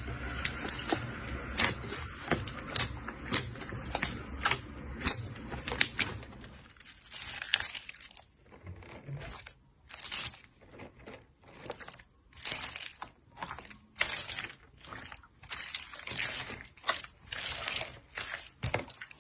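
Slime being kneaded and pressed by hand: a dense run of sharp crackles and pops, then from about seven seconds in, short squishy presses about once a second with brief quiet between them.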